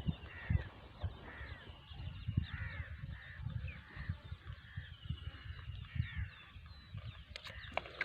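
Crows cawing over and over, about one call a second, with small birds chirping thinly in the background and low thumps and rumble underneath.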